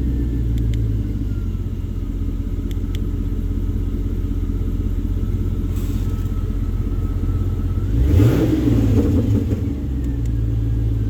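Car engine idling through an electric exhaust cutout set fully open, an unmuffled exhaust note. About eight seconds in the throttle is blipped once and the revs rise and fall back to idle.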